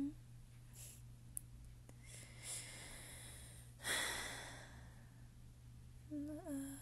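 A woman breathing softly close to the microphone: an in-breath, then a longer sigh a little past the middle that fades away over about a second, and a short hummed "mm" near the end.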